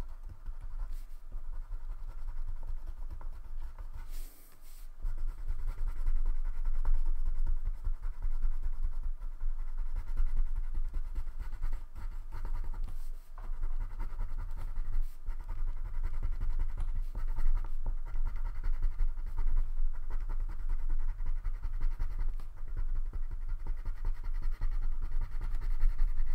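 Black wax crayon scribbling on paper, rapid back-and-forth strokes filling in a solid area, with a brief pause about four seconds in.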